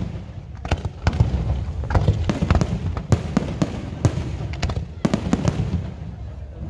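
Fireworks display: aerial shells bursting in quick succession, sharp bangs coming several a second, some close together, over a steady crackle and rumble.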